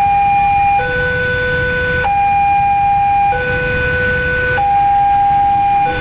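Electronic two-tone warning alarm alternating between a higher and a lower tone, each held for about a second and a quarter, over a steady low rumble of traffic or machinery.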